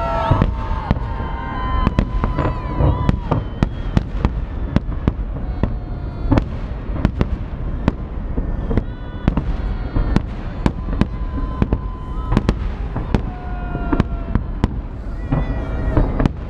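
Fireworks salute bursting overhead: a quick, irregular run of many loud bangs and crackles, with people's voices calling out over them.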